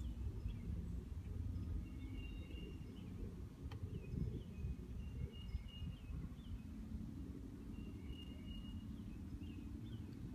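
Outdoor ambience: a low steady rumble with faint, high bird calls, short chirps and brief whistled notes, repeating throughout. A single sharp click a little under halfway through.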